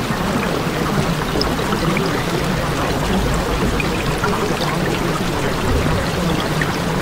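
Steady running water, an even rush with small scattered droplet sounds and no change in level.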